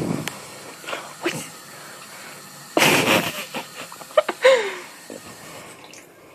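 Bathroom faucet running a thin stream into the sink, with a loud breathy burst about three seconds in and a short vocal sound falling in pitch just after it.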